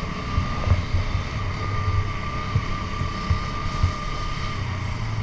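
KTM Duke 250's single-cylinder engine running at a steady cruise while riding, with road and wind noise on the rider's microphone. A thin steady whine runs from about a second in until near the end.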